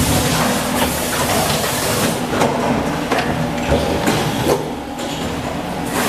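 DC88 die-casting machine running: a steady mechanical hum and noise, broken by several sharp metal clanks and knocks.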